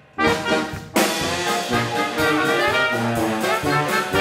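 Small Dixieland jazz band (trumpet, saxophone, tuba and drum kit) playing: one short ensemble chord cut off sharply, then from about a second in the whole band playing on without a break.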